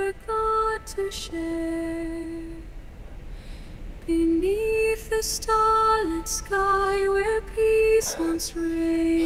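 A woman singing a slow, lullaby-like song with long held notes that step between a few pitches, with short breaks between phrases.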